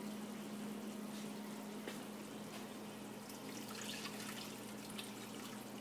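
Warm water being poured into a small frying pan of oil-toasted rice: a faint watery trickle with a few small clicks, the step that starts the rice simmering. A steady low hum runs underneath.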